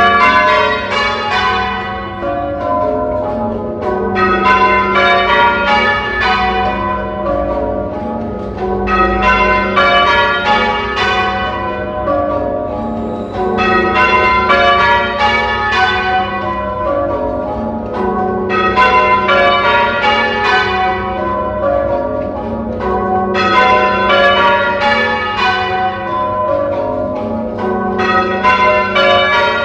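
Church tower bells being rung, one bell after another in an unbroken stream of strikes that overlap and ring on.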